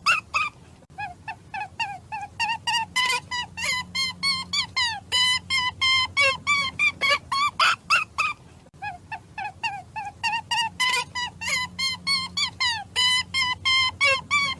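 Rapid series of short, high-pitched animal calls, several a second, each gliding slightly in pitch, with brief pauses about a second in and near the middle.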